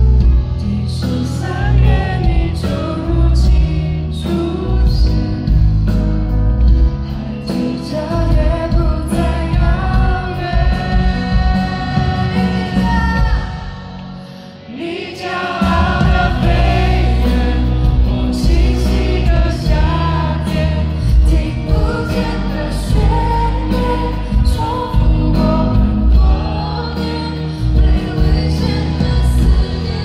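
A female singer singing a Mandarin pop ballad live with a full band behind her, heard through a concert sound system. About halfway through, the backing briefly drops away and then comes back in.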